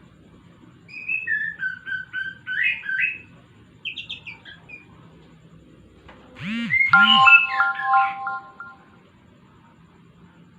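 Caged white-rumped shama calling at night in several short bursts of sweeping whistled notes, ending in a louder, odder phrase with several steady held tones.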